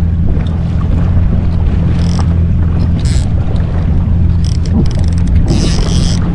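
Yamaha jet ski engine idling with a steady low hum, with wind buffeting the microphone. A brief high-pitched hiss comes near the end.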